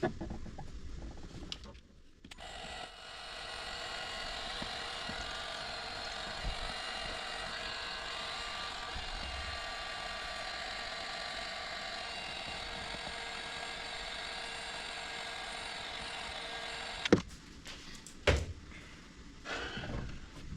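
Electric heat gun blowing steadily, shrinking heat-shrink tubing over repaired wires; it spins up over about a second, runs for about fourteen seconds and cuts off abruptly. Two sharp knocks follow.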